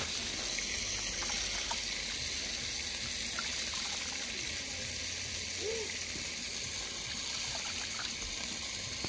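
Hands swishing and rubbing rice grains in a plastic basin of water, washing the rice before it goes into the pot: a steady watery swishing.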